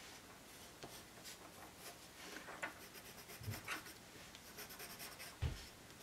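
Faint scratching and tapping of a drawing tool on paper as white highlights are added to a watercolor painting, with two soft low thumps about three and a half and five and a half seconds in.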